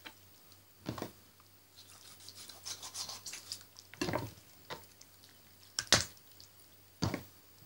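Knife cutting and scraping through a raw chicken on a wooden cutting board, with a few sharp knocks of the knife and bird against the board.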